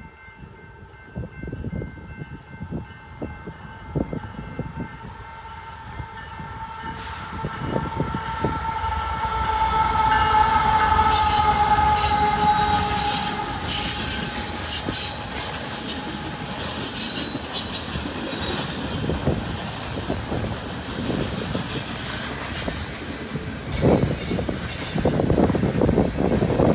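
A Union Pacific freight locomotive's air horn sounds as the train approaches a grade crossing. The horn grows louder for about the first 13 seconds, its pitch dropping slightly as the locomotive passes. Then loaded coal hopper cars roll by with a steady rumble, wheels clacking and squealing on the rails.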